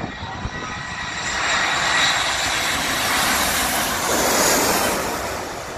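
Airbus A340-300's four CFM56 jet engines passing low overhead on final approach to land: a rush of jet noise that swells about a second in, stays loud through the pass, and fades near the end.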